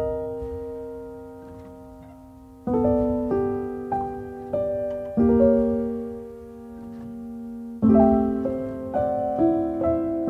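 Background piano music: slow chords, each struck and left to ring and fade, a new chord about every two and a half seconds with single notes in between.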